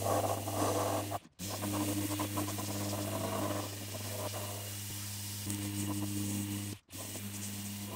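Random orbital sander rough-sanding a plywood box: a steady motor hum with a hiss of abrasive on wood. The sound cuts out abruptly for a moment about a second in and again near the end.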